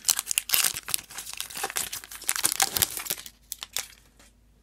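Foil wrapper of a hockey trading-card pack crinkling and tearing as it is ripped open by hand, a dense crackle for about three seconds that then thins to a few scattered rustles.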